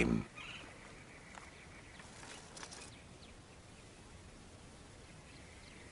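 Faint outdoor natural ambience: a low steady hiss with a few soft ticks and rustles about two to three seconds in.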